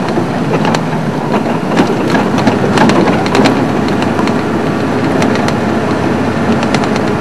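Safari vehicle driving along a rough dirt track: steady engine and road noise, with scattered knocks and rattles as it goes over bumps.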